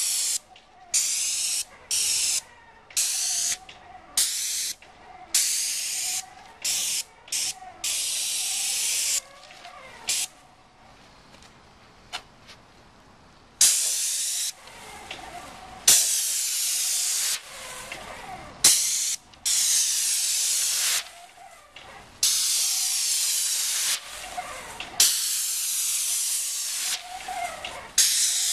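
Paint spray gun hissing as the trigger is pulled and released: many short sprays at first, a pause of about three seconds near the middle, then longer sprays.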